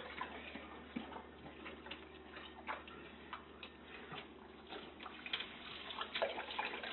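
Saint Bernard lapping water at a kitchen faucet: a string of irregular wet tongue clicks.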